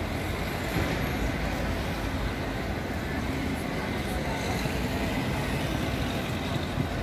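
City street ambience: steady traffic rumble with faint voices of passers-by.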